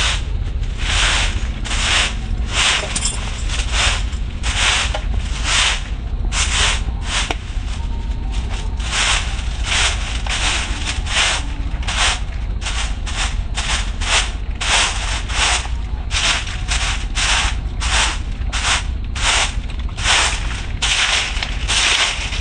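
A straw broom sweeping a paved path in short, regular strokes, about two a second.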